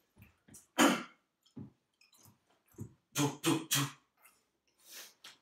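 A man making vocal mouth noises in imitation of police-radio crackle: short hissing, crackling bursts, the loudest about a second in, then three quick voiced bursts about three seconds in.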